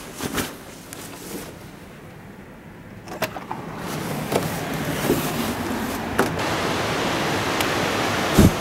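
Rushing river water that swells in about three seconds in and then runs steadily, with a few knocks early on and one heavy thump near the end.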